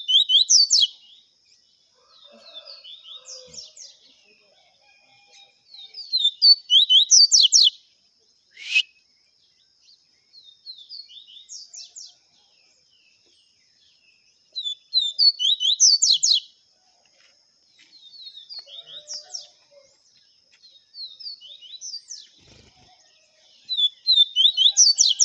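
Double-collared seedeater (coleiro) singing the 'viviti' song type: short phrases of rapid, slurred high notes repeated every few seconds, some loud and some fainter. A single sharp falling note comes about a third of the way in.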